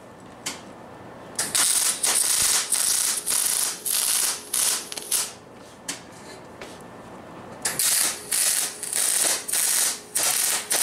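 MIG welder arc crackling in a run of short bursts of about half a second each, stopping for about two seconds midway. The welding is sputtering and uneven, which the welder blames on worn drive wheels and a liner that feed the wire unevenly.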